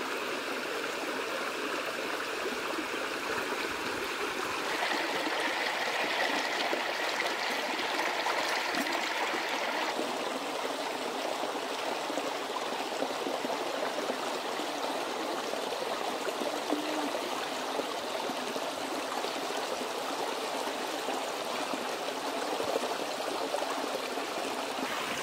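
Stream water running over rocks, a steady rushing and trickling, its tone shifting slightly about five and ten seconds in.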